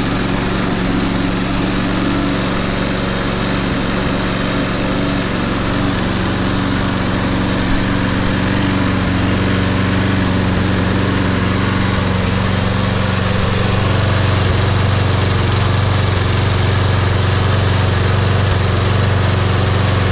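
Toro Super Recycler SR4 lawn mower's single-cylinder Briggs & Stratton 190cc engine running steadily, warmed up after a cold start, a little louder in the second half.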